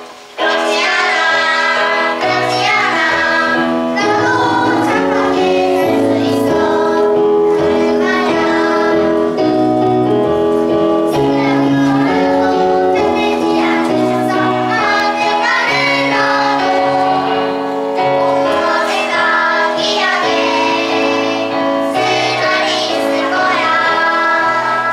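A group of young children singing a song together over instrumental accompaniment with a steady bass line.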